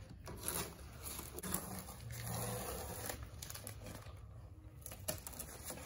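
Masking tape being peeled off a car's painted body panel and crumpled in the hand, a quiet crinkling and tearing rustle.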